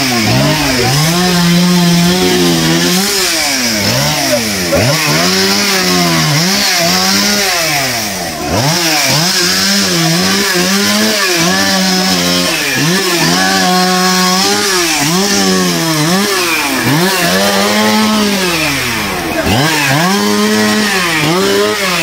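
Chainsaw revved up and let back again and again, its pitch climbing and dropping every second or two, held high for the first few seconds.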